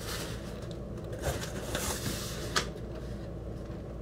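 Cardboard shoe box and its paper insert being handled and tilted: rustling and scraping, with one sharp tap about two and a half seconds in.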